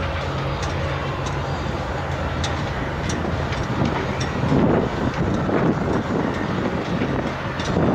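Harbor tugboats' diesel engines droning low and steady as they pull a freighter. Gusts of wind buffet the microphone from about four seconds in and again near the end.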